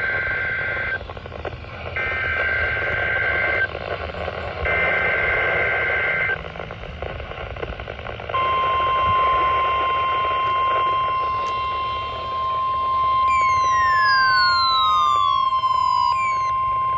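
Weather radio sounding three short bursts of two-pitch digital alert data tones over radio static, the end-of-message code after a weekly test, then a long steady alarm tone. About five seconds into the steady tone a second tone glides down in pitch over about three seconds.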